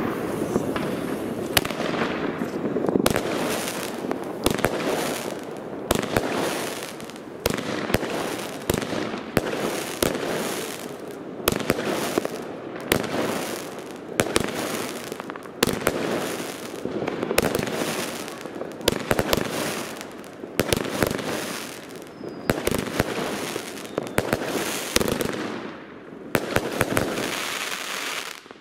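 Weco Raptor Planet, a 25-shot 25 mm Pyro-Mould fireworks battery, firing shot after shot at about one a second, each launch followed by a cluster of sharp bangs and crackle from the bursts. The firing stops abruptly just before the end as the battery finishes.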